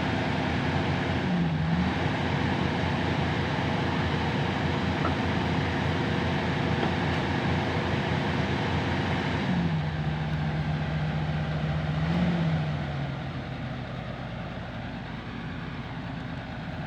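Excavator's diesel engine running under load. Its note dips briefly early, drops and holds lower for a few seconds, then the engine fades down about thirteen seconds in.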